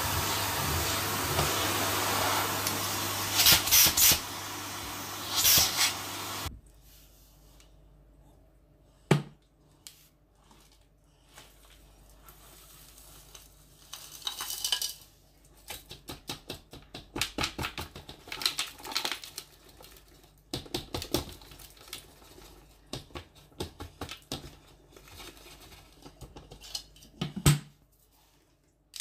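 Vacuum cleaner running on carpet, with sharp crackles as it sucks up gritty debris, then switched off about six seconds in. After that come light clicks and rattles as the beads, pins, glitter and grit are tipped out of its clear dust bin onto the carpet.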